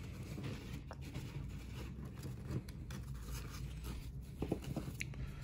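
Faint rustling and sliding of a stack of baseball cards being handled, card stock rubbing against card stock, with a few soft clicks.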